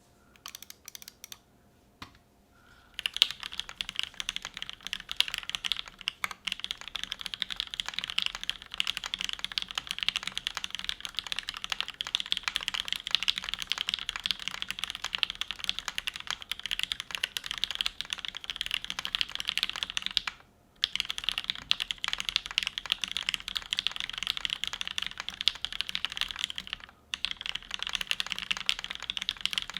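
Typing on a MintAutumn Rukia Alice-layout mechanical keyboard with lubed and filmed JWK Giant V3 switches, a polycarbonate plate and GMK keycaps. A few scattered keystrokes come first, then fast continuous typing from about three seconds in, broken by two short pauses in the second half.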